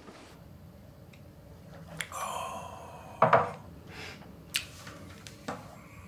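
Crockery being handled: a few clinks and knocks. About two seconds in there is a ringing clink, and a second later the loudest knock, followed by two lighter clicks.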